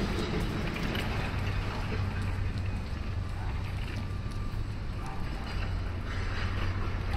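Outdoor city ambience: a steady low engine rumble under a haze of distant traffic noise.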